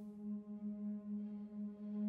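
Background film score: a single low sustained drone with ringing overtones, held steady with a slight waver.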